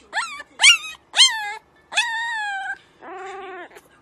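A puppy howling: three short, high yips that rise sharply in pitch, then a longer howl that sinks slightly, and a lower, quieter wavering howl near the end.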